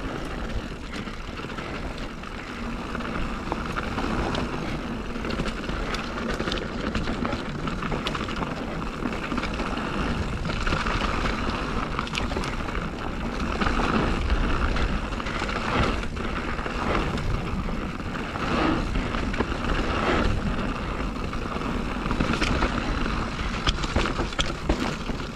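Mountain bike riding down a dirt trail: steady tyre and rolling noise with a low rumble, and the bike rattling and clattering over bumps again and again.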